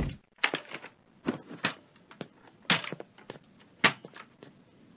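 Irregular light knocks and clatter of a metal walking frame being shuffled forward, a few quick clicks at a time with short gaps between.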